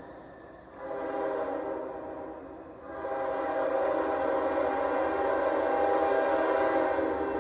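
Second-generation Nathan K5HL five-chime locomotive air horn sounding a chord in three blasts. The first ends just after the start, the second lasts about two seconds, and a long blast is held from about three seconds in.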